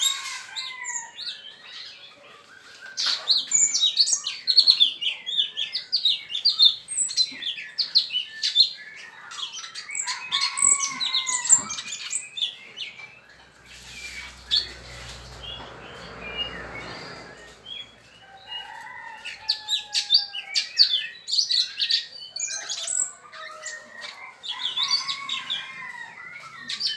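Caged songbird singing in long, fast runs of high chirps and whistles. The song stops for a few seconds about halfway through while a rustling noise is heard, then starts again.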